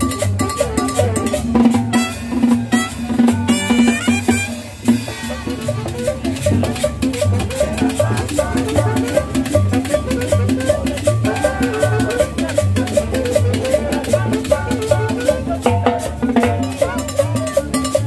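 Live Latin dance music from a small street band: upright bass, trumpet and drums playing a steady, danceable rhythm, with a brighter melodic phrase about two to four seconds in.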